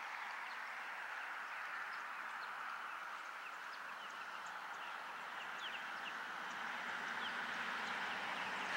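Outdoor wetland ambience: a steady wash of background noise with many short, high bird chirps scattered through it, growing a little louder near the end.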